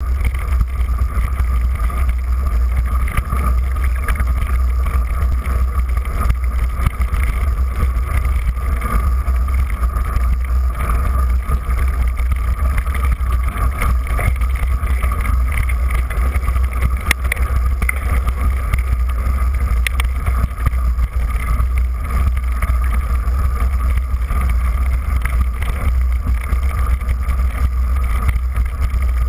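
Mountain bike riding along a snowy trail, heard through a camera mounted on the bike: a steady, heavy rumble of wind and trail vibration, with a few faint clicks.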